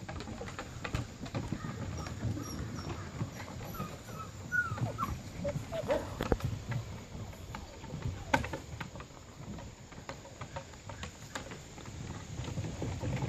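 Six-week-old puppies giving a few short, high whimpers about four to six seconds in, over scattered clicks and rustling.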